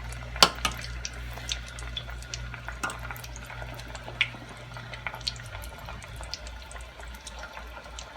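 Cheese sticks deep-frying in hot canola oil: a steady sizzle with scattered sharp pops and crackles. A low hum runs underneath and stops about two-thirds of the way through.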